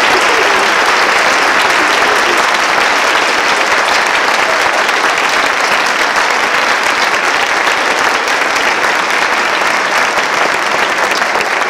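Large audience applauding steadily: a dense, even clapping from a full auditorium.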